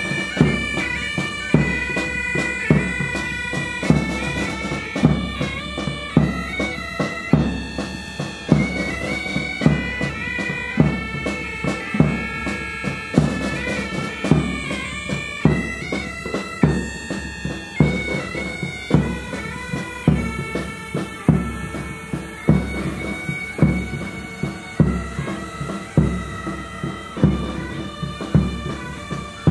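Pipe band playing a march: bagpipes carry a stepped melody over a steady drone, with a drum beating about once a second.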